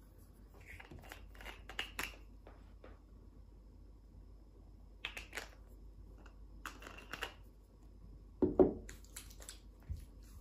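Quiet handling noises: skincare tubes and bottles being picked out of a plastic organiser box, with light clicks and rustles in small clusters. About eight and a half seconds in comes a louder knock as a bottle is set down on the wooden table.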